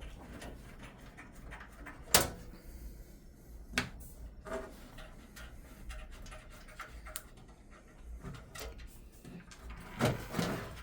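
Sharp clicks and knocks from handling a thin steel PC case as its side panel is taken off. The loudest knock comes about two seconds in, with smaller clicks scattered through the rest.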